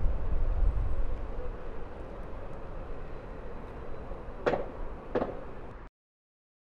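Strong storm wind buffeting the microphone, a low rumble that eases off, with two short knocks about four and a half and five seconds in; the sound then cuts off to silence.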